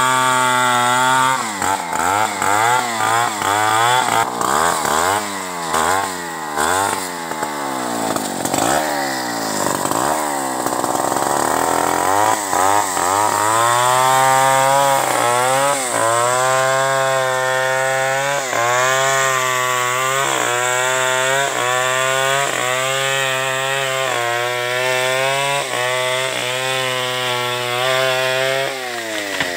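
Two-stroke chainsaw cutting through a tree trunk at its base, its engine pitch rising and falling again and again in the first half, then held high and steady through the cut before dropping back near the end.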